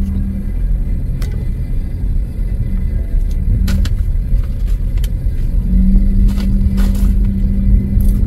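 A car running, a low rumble of engine and road noise with a steady hum that fades for a few seconds in the middle and returns near the end, with a few short clicks.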